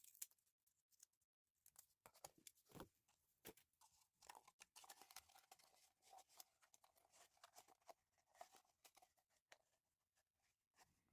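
Near silence, with faint scattered clicks and rustles of small objects being handled.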